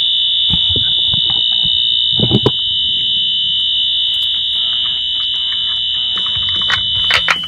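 Wheelock Exceeder and Wheelock AS fire alarm horns, both set to continuous, sounding a steady, high, really loud tone, with a few knocks over it. Near the end one of the two pitches cuts off while the other keeps sounding.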